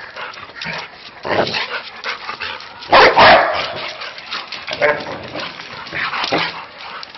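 A dog barking in a series of separate barks spread over several seconds, the loudest about three seconds in.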